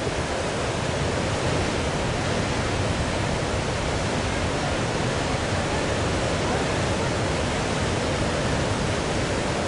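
Steady roar of surf breaking and washing over a reef, an even rushing noise with no let-up.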